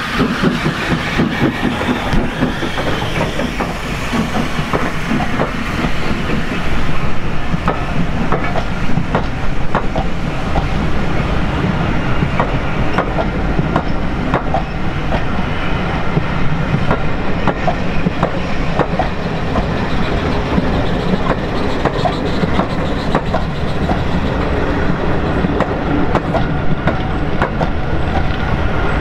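J94 0-6-0 saddle-tank steam locomotive passing close by, followed by its train of coaches rolling past, the wheels clicking over the rail joints.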